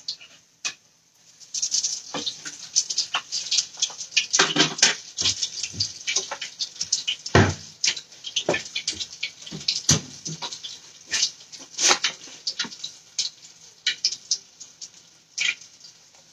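Irregular run of sharp clicks and taps from kitchen utensils knocking against dishes, some louder than others.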